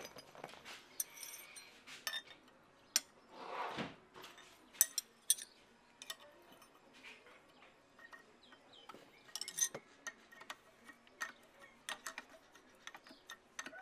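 Steel spanner clinking and ticking against the exhaust manifold nuts and studs of an Isuzu 4JB1 diesel cylinder head as the nuts are fitted and tightened. The clicks come irregularly, the sharpest about five seconds in.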